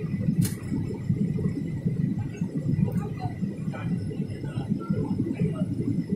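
Jet airliner cabin noise: the steady low rumble of engines and rushing air heard inside the cabin as the plane descends on approach to land.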